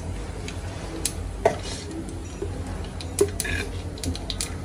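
Mustard and cumin seeds crackling in hot mustard oil in a small tadka pan: scattered sharp ticks and pops at irregular intervals, over a low steady hum.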